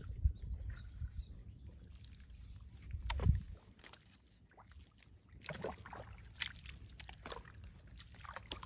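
Bare feet squelching and sloshing through soft, waterlogged mangrove mud, one step after another, the feet sucking out of the mud. A heavier low thump comes about three seconds in, and the steps go quieter for a moment before starting up again.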